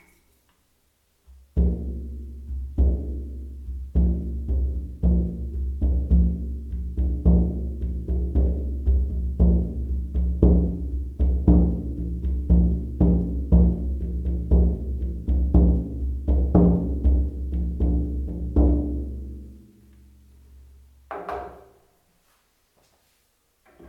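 Shaman frame drum beaten in a steady rhythm, each stroke leaving a deep, ringing boom. The beating starts a second or two in, stops after about eighteen seconds and dies away, with a couple of lighter taps near the end.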